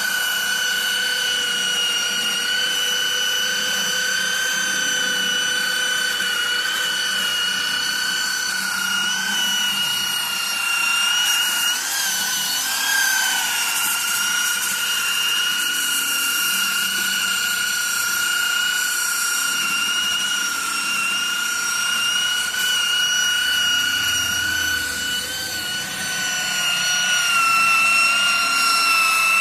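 Handheld electric sanding machine running with a steady high whine and the hiss of abrasive on carved wood. Its pitch wavers briefly about twelve seconds in and again near the end.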